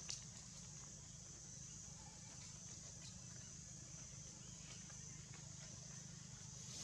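Quiet outdoor ambience: a faint, steady, high-pitched insect drone over a low steady hum, with one short click just after the start.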